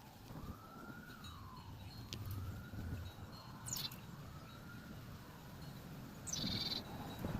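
A distant wailing siren, its pitch slowly rising and falling about every two seconds, over a low rumble. A bird chirps briefly about four seconds in and again near the end.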